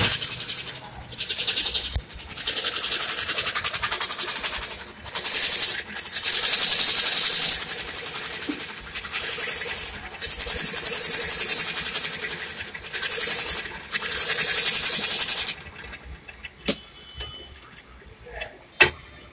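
Electric scroll saw cutting a switch-board panel: a loud, rapid rattle of reciprocating blade strokes in long runs, pausing briefly several times as the panel is turned, then stopping about three-quarters of the way through. A few light knocks follow.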